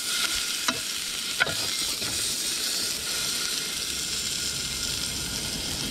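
Pork slices sizzling on a grill pan over a portable gas stove, a steady frying hiss that starts as the meat goes down. Two light clicks come in the first second and a half.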